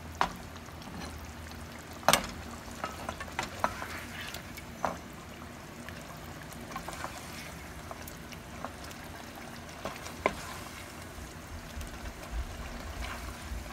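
Wooden spoon scooping curry out of a frying pan into a glass serving bowl: scattered knocks and scrapes of the spoon against the pan and the bowl, the two loudest about 2 s in and near 10 s, over a soft, steady sizzle of the hot gravy.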